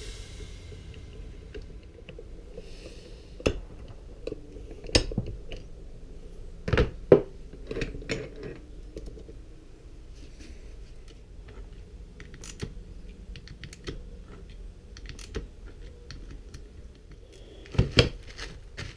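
Scattered light metallic clicks and clinks of motorcycle clutch parts being handled on a bench, with a louder cluster of clicks and crinkling near the end as a plastic bag is handled.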